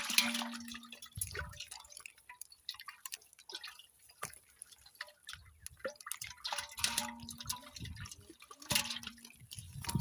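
Water splashing and dripping in irregular bursts, with several sharper splashes.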